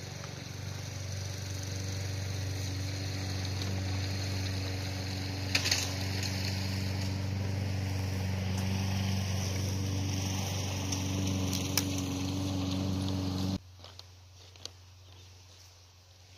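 An engine runs steadily with a low drone, broken by two brief clicks, and cuts off abruptly near the end, leaving quiet outdoor background.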